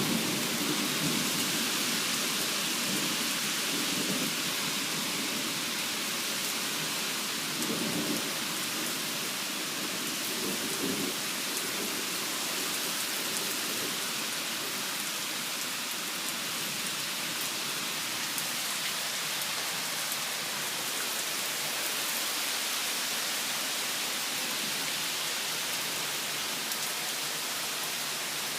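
Thunderstorm downpour: heavy rain falling as a steady hiss, with low rolls of thunder in roughly the first dozen seconds that die away, leaving the rain alone.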